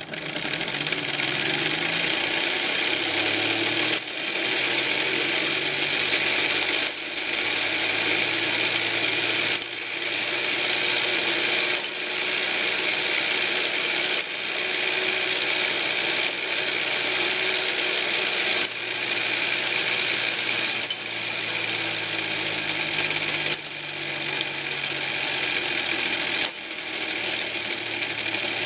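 Meccano model loom running, a steady metallic clatter of its steel strips, gears and linkages with a sharper knock about every two to three seconds as it goes through its weaving cycle. The shuttle is now working reliably.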